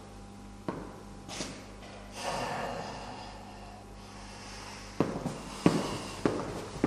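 A man's breathy snort through the nose, then his footsteps on a tiled floor, a few sharp steps about half a second apart near the end, over a steady low room hum.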